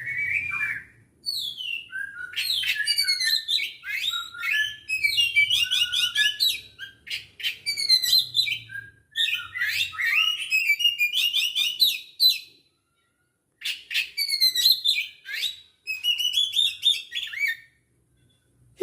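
Oriental magpie-robin (kacer) singing a long, varied song of fast chattering and whistled phrases, with a pause of about a second roughly twelve seconds in.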